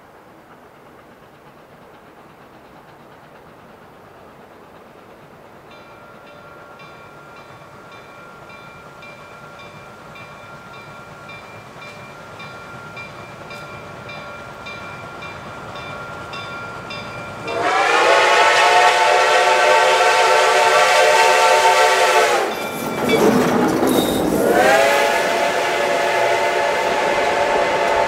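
Reading T-1 4-8-4 steam locomotive 2102 approaching, its rumble growing steadily louder. A little over halfway in, its six-chime steam whistle sounds a long loud blast, then after a short break a second long blast as the train passes close by.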